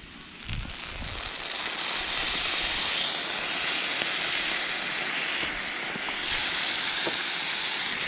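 Crab soy sauce hitting a hot cast-iron saj among frying potato slices, hissing and sizzling as it boils off the metal. The hiss starts about half a second in and swells over the next second or so.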